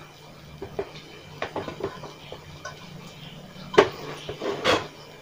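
Scattered light metallic clinks and knocks of tools and wheel parts being handled and set down, irregular, with two louder clacks near the end.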